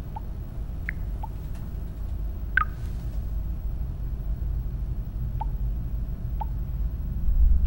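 A steady low rumble, with short faint high chirps every second or so and a brighter one about two and a half seconds in; the rumble swells near the end.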